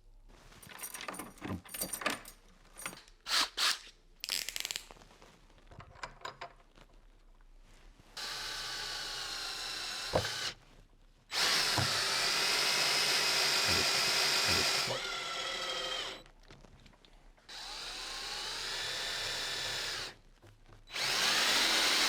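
Power drill/driver running in four bursts of a few seconds each, spinning up at the start of some, while the escutcheon is fixed to the gate; before the first burst, a few seconds of small clicks and knocks of parts being handled.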